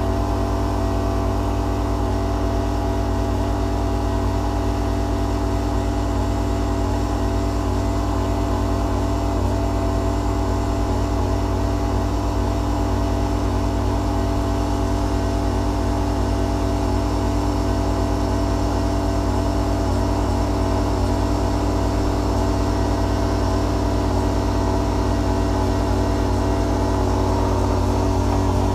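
Rainman watermaker's motor and high-pressure pump running steadily under pressure, with the noise of water being forced through the reverse-osmosis membranes.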